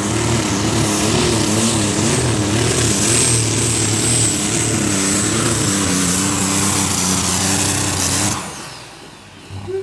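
Super Stock pulling tractor's two-stage turbocharged diesel engine running hard under load, its pitch wavering up and down, with a thin high whistle above it; it cuts off suddenly about eight seconds in. The wavering is the engine stuttering on a power setting turned well back, and the cut is the driver switching it off himself.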